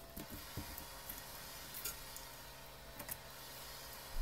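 A few faint scattered clicks and taps of small metal binder clips being handled and set down, over a low steady hum.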